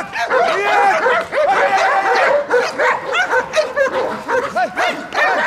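Several dogs barking and yelping excitedly in quick, overlapping barks at different pitches, with no break.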